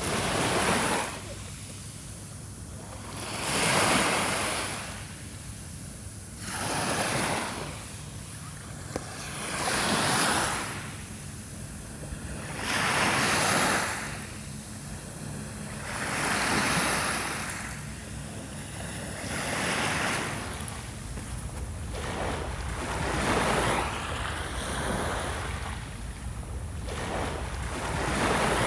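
Small waves breaking and washing up a shore, one swell of hiss every three seconds or so, over a steady low rumble.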